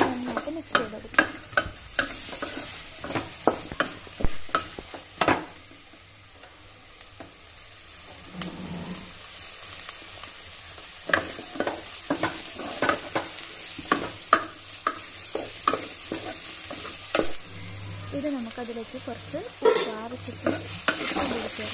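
Wooden spatula scraping and knocking against a metal pan while sliced onions, tomatoes and green chillies are stirred, over a faint sizzle of frying. The stirring eases off for a few seconds about a third of the way in, then resumes with frequent knocks.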